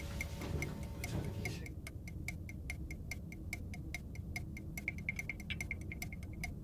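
Fast, steady mechanical ticking, about five ticks a second, over a low rumble.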